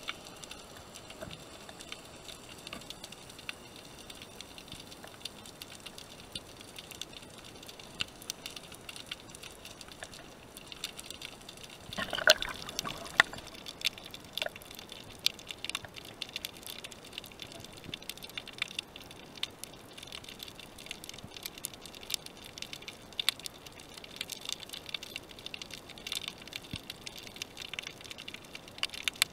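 Underwater ambience heard through a camera mounted on a speargun: a steady hiss scattered with many small clicks and crackles, and a louder watery gush about twelve seconds in.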